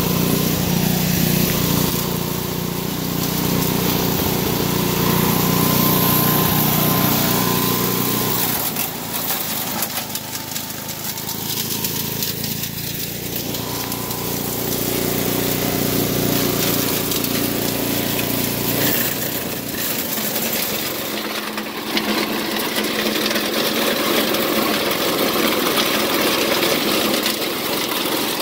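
Mighty Mac wood chipper driven by a 7 hp Briggs & Stratton single-cylinder engine, running steadily on its freshly rebuilt carburettor. The deep engine hum thins out about eight seconds in, and there are scattered knocks and clattering later on.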